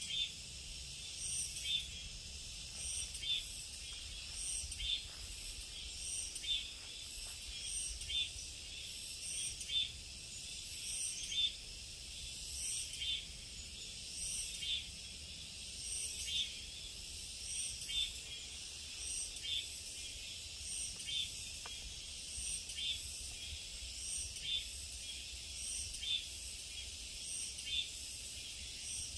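Summer forest insect chorus: a steady high-pitched buzzing, with a pulsing call that repeats about every second and a half.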